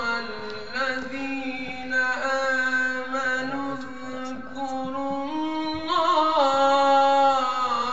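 A young man's voice reciting the Quran in the melodic, chanted style, drawing out long held notes. About six seconds in the voice rises in pitch and grows louder before settling back.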